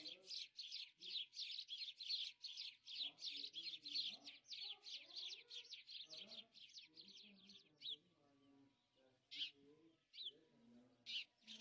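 Small birds chirping in a fast, dense stream of short, high, downward-sliding chirps that thins out about eight seconds in to a few single chirps.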